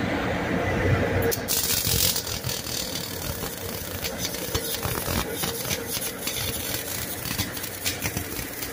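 MIG wire-feed welding arc striking about a second in, then sizzling and crackling steadily with frequent sharp pops.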